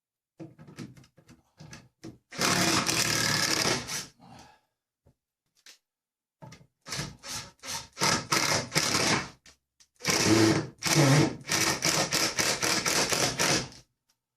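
A tool working timber in loud bursts, with runs of quick separate strokes about three a second, broken by short pauses.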